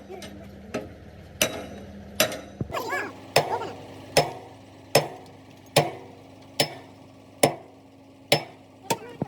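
A hammer striking metal in a steady rhythm: about a dozen sharp blows, a little under one a second, each ringing briefly.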